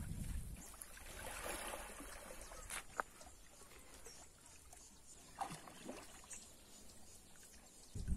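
Faint sloshing and lapping of pond water as a person wades through it, with a few small ticks and a short knock near the end.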